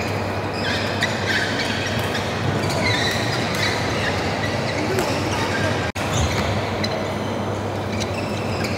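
Din of a busy badminton hall: short high shoe squeaks on the court floors and small racket-on-shuttlecock clicks over a steady low hum and a murmur of voices. The sound cuts out for an instant about six seconds in.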